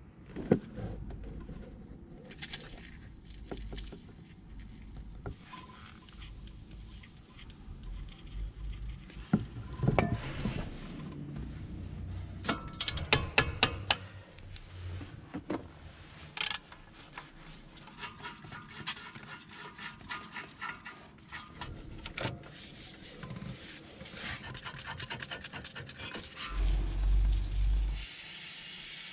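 Hand work on a car's front disc brake: metal parts and tools clinking and knocking, with stretches of scraping and rasping as the rusty wheel hub is brushed. There is a loud low rumble shortly before the end, and then the steady hiss of WD-40 being sprayed from an aerosol can onto the hub to free the brake disc.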